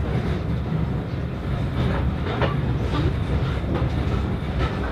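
Heritage railway carriage running along the track, heard from inside: a steady low rumble of the wheels on the rails with occasional light clicks.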